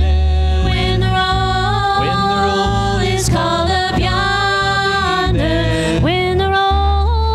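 Gospel hymn sung by several voices together, accompanied by acoustic guitars and an upright double bass.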